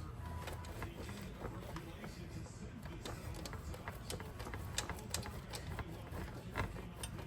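Cheddar cheese being grated by hand on a grater: a run of quick, uneven rasping strokes and clicks.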